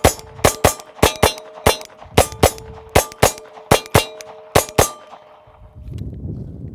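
Glock pistol with a .22 LR conversion kit firing rapidly, about fifteen shots at roughly three a second, with steel silhouette targets ringing as they are hit. The firing stops about five seconds in and the ringing dies away, leaving a low rumbling noise.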